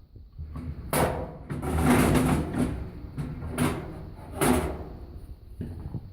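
Scraping and knocking of a Kenmore 90 series dryer's fan blower and its housing being worked off by hand: a sharp scrape about a second in, a longer rough scrape around two seconds, then two more sharp scrapes.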